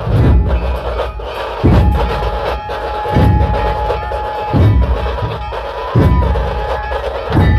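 A troupe of dhol drums beaten with sticks in ceremonial rhythm: deep booming strokes about every second and a half, with fast, sharp stick beats between them. A steady high note is held over the drumming for a few seconds in the middle.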